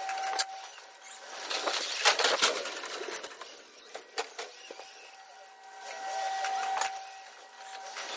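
Forklift's high-pitched warning beeper going in rapid beeps, in several spells, over a steady drive hum and bursts of clattering as the truck travels.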